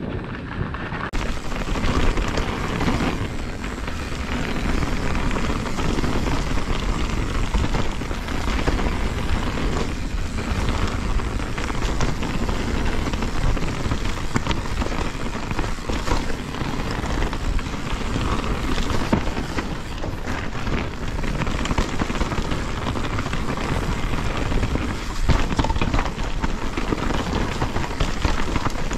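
Mountain bike riding down a snowy, rough trail: a steady rush of tyre and wind noise, with constant small rattles and knocks from the bike jolting over the ground.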